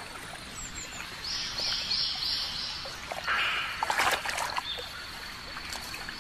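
Tidal mudflat ambience: a bird chirps four times in quick succession about a second in, over a thin steady high tone. About three seconds in there is a short splash of water as mudskippers scuffle in a shallow pool.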